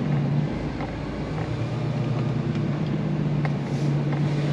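Truck's diesel engine running as a steady low drone, heard from inside the cab while the lorry drives slowly.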